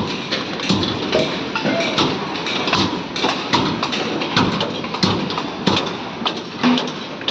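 Construction site work: irregular knocks and taps, a few a second, over a steady din.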